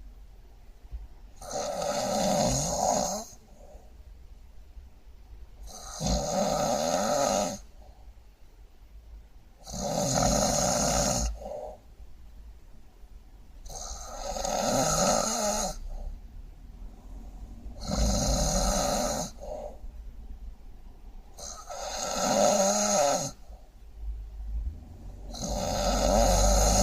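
Heavy, terrible snoring: seven loud snores, about one every four seconds, each lasting about two seconds, with quiet between them.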